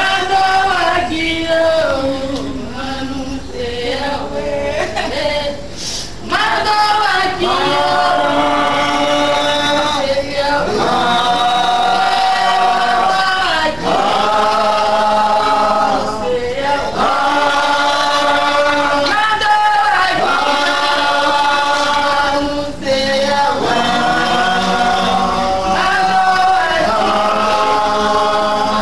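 A group of voices singing a chant together, in held phrases of a few seconds with brief breaks, louder from about six seconds in.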